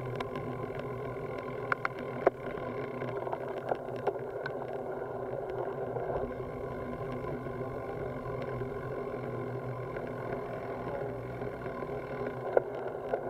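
Steady riding noise of a road bicycle on tarmac, heard through a handlebar-mounted camera, with a few sharp knocks from the bike and mount, several around two seconds in and one near the end.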